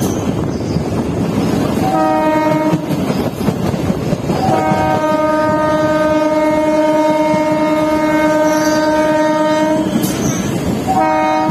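Horn of an electric multiple unit (EMU) local train: a short blast about two seconds in, a long blast from about four and a half to ten seconds, and another starting near the end. Underneath is the moving train's steady rumble, wheel clatter and wind.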